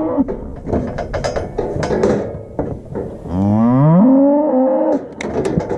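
A calf moos once, a long call rising in pitch that starts about halfway through. Around it come short clanks and rattles from the steel cattle chute holding the calf.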